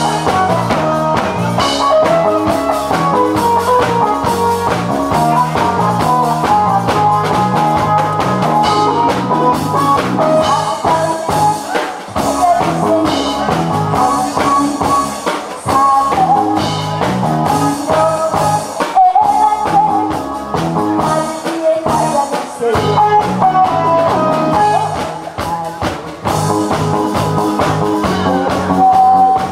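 A woman singing into a microphone over amplified backing music with drums and a steady beat.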